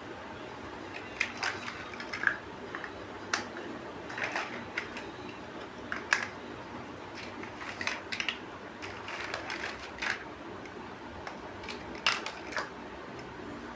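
Plastic building bricks clicking and rattling as pieces are handled and pressed together: irregular sharp clicks with soft rustling between, the loudest about halfway through and again near the end.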